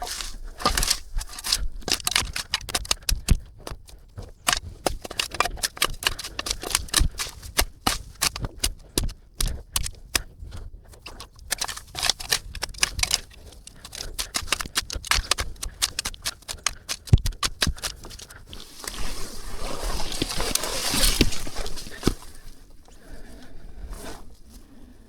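Footsteps crunching and crackling through wet, overgrown vegetation on a dirt slope: many quick irregular crackles. A louder stretch of rustling comes near the end.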